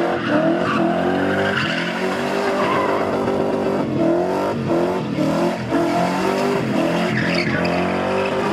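BMW E30 spinning car held in a wheelspin, its engine revving high and rising and dipping over and over, with the rear tyres screeching as they spin.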